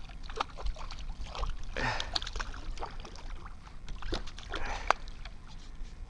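Water splashing and sloshing beside a kayak as a hooked bass is fought to the boat, with scattered sharp clicks and knocks.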